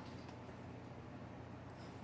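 Quiet room tone: a faint steady low hum and hiss, with no distinct event.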